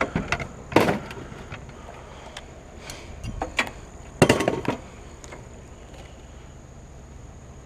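A child's kick scooter knocking and clattering against the wooden deck and sides of a utility trailer as it is put in. There are a few sharp knocks near the start, a loud one about a second in, and a louder cluster of knocks around four seconds in.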